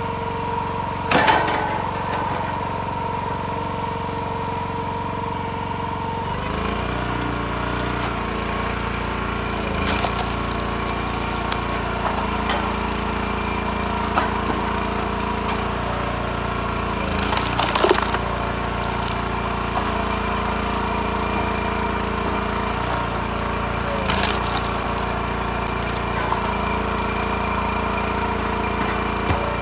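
Timberwolf TW-5 log splitter running, its engine holding a steady note that changes about six seconds in. Big oak rounds give several sharp cracks and splintering as the splitter's wedge drives through them.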